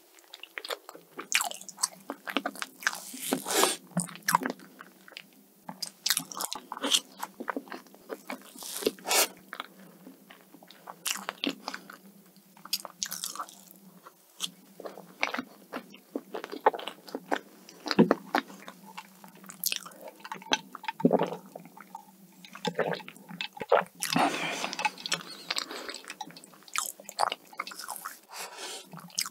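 Close-miked chewing and biting of soft matcha cheesecake: wet mouth sounds with many short, sharp clicks at an uneven pace.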